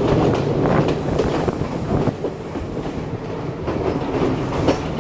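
Sri Lanka Railways Class S12 diesel multiple unit running along the line, heard from aboard: a steady rumble with the wheels clicking irregularly over the rails.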